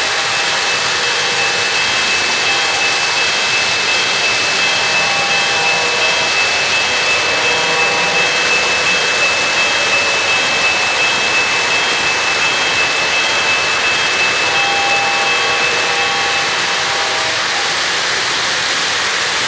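O-gauge three-rail model trains running, with a steady rumble of wheels on metal track and the hum of their motors. A thin, steady high whine stops near the end.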